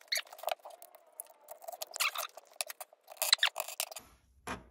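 Rapid, irregular metallic clicking and rattling of a drop-in AR trigger being handled in a pneumatic trigger test rig, stopping suddenly about four seconds in, with a single click near the end.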